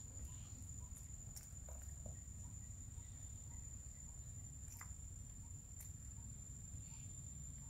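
An insect drones steadily at one high pitch over a low background rumble. A few faint sharp clicks sound at scattered moments as a macaque nibbles at small green fruits.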